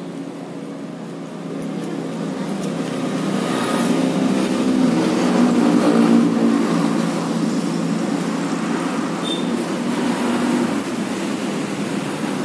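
A motor vehicle's engine running close by, growing louder over the first few seconds and then holding steady.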